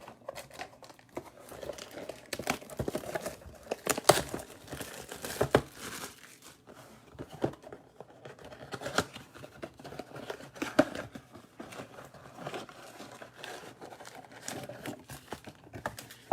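Plastic wrapping on a box of Topps Heritage baseball cards crinkling and tearing as it is opened by hand: irregular crackling with a few sharper snaps, the loudest about four seconds in.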